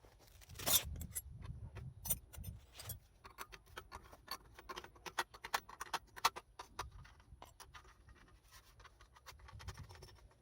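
Irregular clicks, taps and scrapes of hard objects being handled, loudest about a second in and thinning out toward the end.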